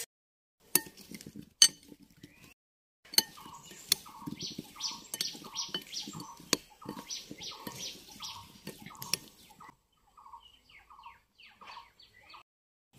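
A steel spoon clinks and scrapes against a glass bowl while mixing wet onion pieces. From about three seconds in, a bird calls over and over, about two short falling notes a second, and keeps on after the mixing stops.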